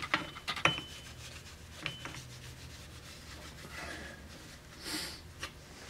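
A cloth rag scrubbed back and forth over the gasket face of a metal transmission case half, wiping off old gasket material with lacquer thinner. The scrubbing is faint and irregular, with a few light clicks in the first two seconds.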